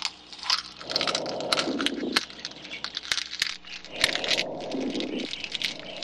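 Rapid, irregular clicking and crackling, with a muffled lower rushing sound that swells twice for just over a second each.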